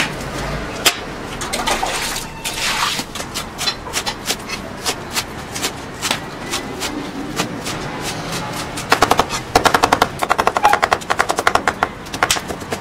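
Chinese cleaver chopping greens on a thick round wooden chopping block: a series of sharp chops, then a fast, rapid run of chopping about nine seconds in that lasts until near the end.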